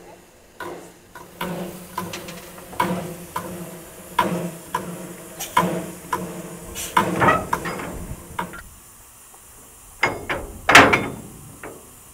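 Metallic clicks and knocks around a small narrow-gauge steam locomotive as it is coupled to its carriage, ending in two loud clanks near the end as the coupling is made.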